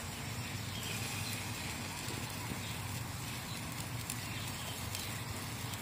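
Steady outdoor background noise: a low hum under an even hiss, with no distinct sound standing out.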